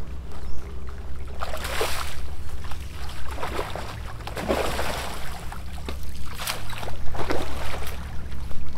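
Water splashing in several bursts as a Siamese carp thrashes in a landing net and is let go into the lake, over a steady low rumble.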